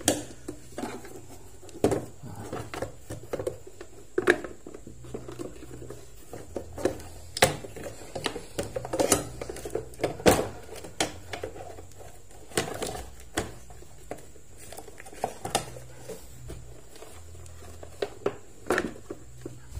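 Hard plastic knocks, clacks and rattles from handling a Kenmaster 17 plastic toolbox: tools are set into it and its fold-out trays are moved. The knocks are sharp and irregular, the loudest every second or two.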